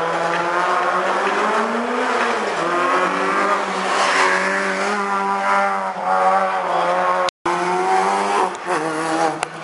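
Rally car engine revving hard through a corner, its pitch rising and falling with throttle lifts and gear changes. The sound drops out completely for a moment a little past halfway.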